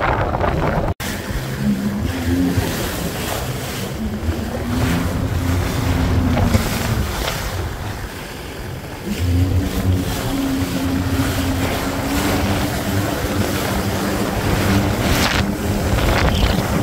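Jet ski engine running at speed over the sea, its pitch easing off in the middle and then climbing again, with wind rushing on the microphone and water splashing.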